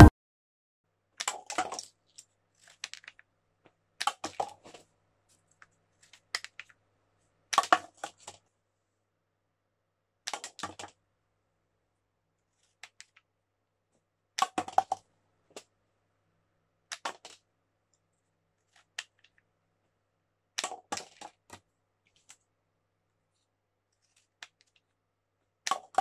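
Homemade rubber-band-powered cardboard pistol firing about eight times, every three to four seconds: each shot is a sharp snap followed by a short clatter of light paper cups being hit and tipped over.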